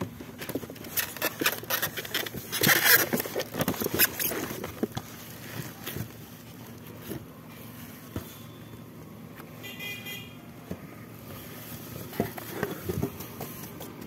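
Cardboard box and plastic parts rustling and clattering as a pressure washer is unpacked by hand, busiest and loudest in the first few seconds. About ten seconds in there is a short high horn-like tone.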